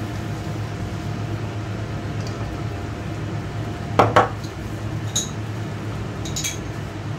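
A wooden spoon stirring sauce in a frying pan, with a few light clinks, and two sharp knocks about four seconds in as a glass jar is set down on the counter. A steady low hum runs underneath.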